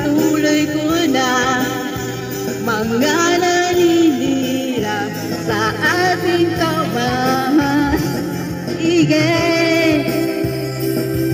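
A woman singing karaoke into a handheld microphone over a backing track, amplified through a portable karaoke speaker.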